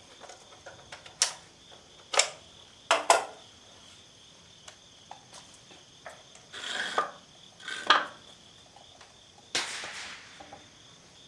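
Sharp clicks and clacks of 12-gauge shotgun shells and a box magazine being handled, four crisp clicks followed by three longer scraping slides, typical of shells being pressed into a shotgun magazine. Crickets chirp steadily in the background.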